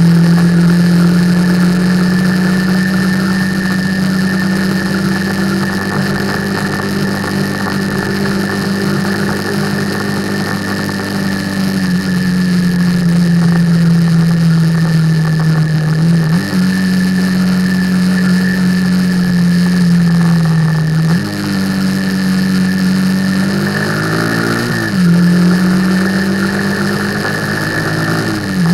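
Motorcycle engine running at cruising speed over steady wind rush, heard from the rider's helmet. Its note sags slowly and then steps back up at gear changes a few times, with a quick rise and drop in revs near the end.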